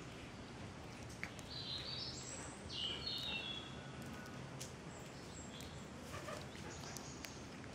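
Small birds chirping in short high phrases a couple of seconds in and again near the end, over a steady outdoor noise haze with a few faint clicks.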